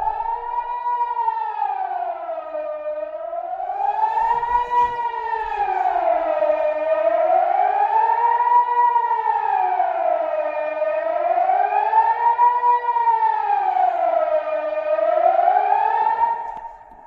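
Kockum Sonics KS DELTA-4 civil defence siren sounding the Swiss general alarm, a steady wail that rises and falls about once every four seconds, heard from indoors through a closed window. It fades out near the end as the alarm cycle finishes.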